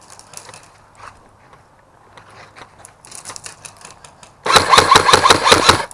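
Airsoft electric gun firing a rapid burst on full auto, a quick string of sharp shots over the whir of its gearbox motor, starting about four and a half seconds in and lasting about a second and a half.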